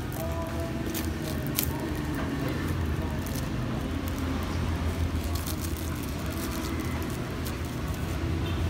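Clear plastic shrink wrap crinkling and crackling in short bursts as it is peeled off and handled on a small cardboard box, over a steady low rumble.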